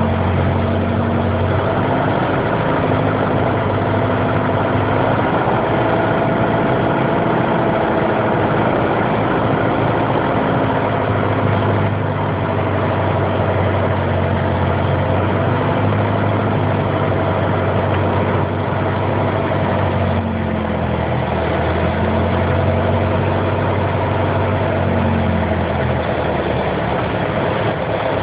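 Piper PA-28's single piston engine running steadily at low power, its pitch drifting slightly up and down.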